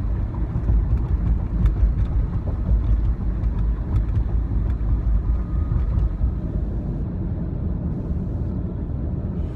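Steady low rumble of road and engine noise inside a car cabin while driving.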